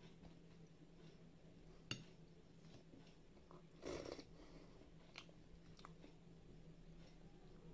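Quiet mukbang eating sounds: a sharp click about two seconds in, then a short sip of dal taken from a plastic spoon about four seconds in, followed by a few soft mouth clicks of chewing.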